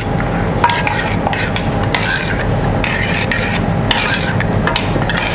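A metal spoon stirring coco beans and diced vegetables in broth in a small stainless steel saucepan, with irregular wet scrapes and clinks against the pan.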